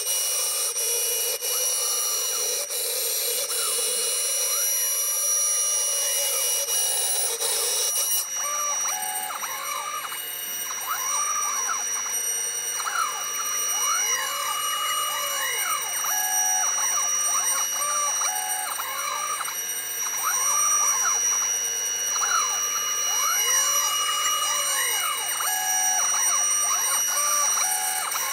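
3040 desktop CNC router milling acrylic with a single-flute bit: the spindle whines steadily over the hiss of cutting. From about eight seconds in, the stepper motors' tones rise and fall in repeated arcs as the machine traces curves.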